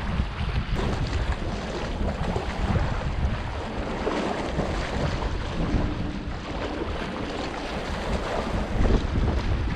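Wind buffeting the microphone with a heavy, fluttering rumble, over small waves lapping at a rocky shoreline.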